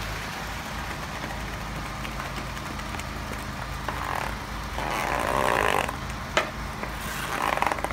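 Concrete mixer truck running steadily with a low hum while wet concrete is poured and spread. Louder bursts of scraping and sliding noise from the wet concrete and shovels come about four and five seconds in and again near the end, with a single sharp knock about six seconds in.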